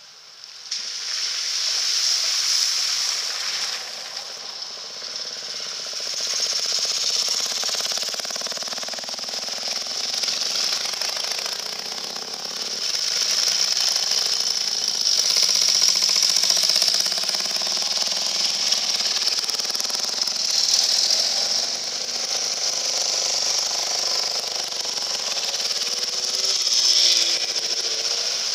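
Vintage and classic motorcycle engines running as the bikes ride one after another through a shallow ford, with water splashing under the wheels. The sound swells several times as each machine passes.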